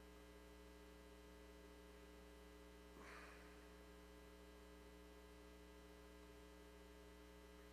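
Near silence with a steady electrical mains hum, and a faint short noise about three seconds in.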